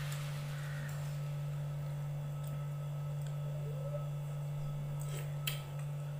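A steady low hum throughout, with a few faint clicks of a fork and spoon against a ceramic bowl about five seconds in as noodles are eaten.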